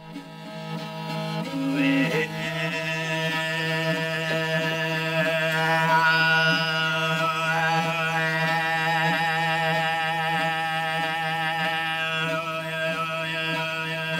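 Mongolian throat singing (khoomei): a steady low drone with a whistling overtone melody wavering above it, sung to a bowed horsehead fiddle (morin khuur).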